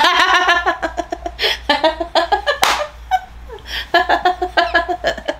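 Women laughing together, with snatches of talk in between.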